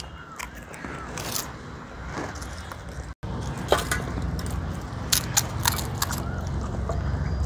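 Crisp pani puri shells crunching between the teeth as they are eaten, in scattered short crackles and clicks; the sound drops out for an instant about three seconds in.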